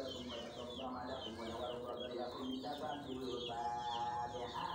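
Chickens clucking, with high, falling peeps repeating three or four times a second.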